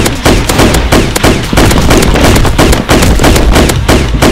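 Rapid automatic gunfire, about five shots a second in an even string. It is a gunfire sound effect matched to a motorized Nerf Stratohawk blaster firing full-auto.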